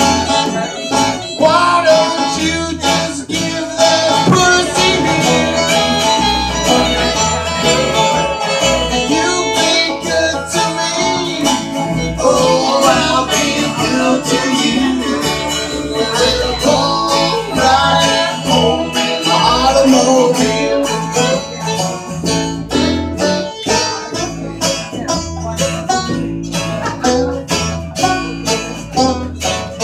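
Live band playing an instrumental passage led by guitar, over a moving bass line and a steady beat.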